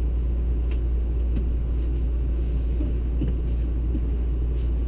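Steady low rumble of a running machine. Over it come a few faint knocks and rustles as an RV sleeper sofa is pulled out flat into a bed.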